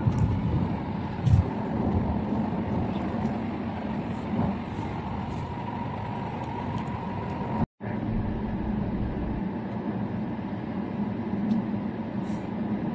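Steady road and engine noise inside the cabin of a moving car, a low, even rumble of tyres on the road. About eight seconds in it drops out for an instant where the recording is cut.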